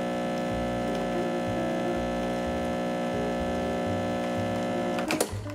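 Breville Infuser espresso machine's vibratory pump humming steadily while it pushes water through the puck to extract an espresso shot. It cuts off with a click about five seconds in as the shot is stopped.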